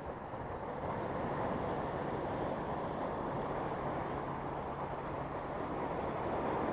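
Sea surf surging and breaking over rocks at the shoreline: a steady rushing wash of water.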